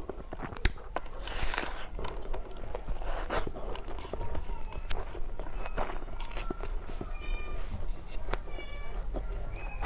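A person eating close to the microphone: biting and chewing with wet mouth clicks and crunches at an irregular pace.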